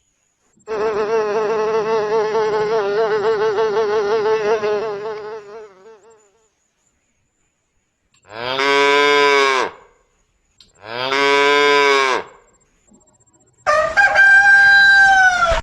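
Recorded animal sounds one after another. First a mosquito's whining buzz, wavering in pitch, for about five seconds. Then a cow mooing twice, and near the end a hen's long call.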